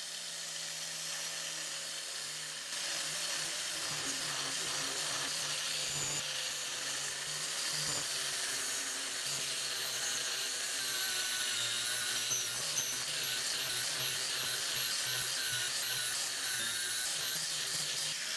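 Angle grinder with a 120-grit flap disc running and sanding across a stainless steel sheet: a steady high whine over the rasp of the disc, a little louder from about three seconds in.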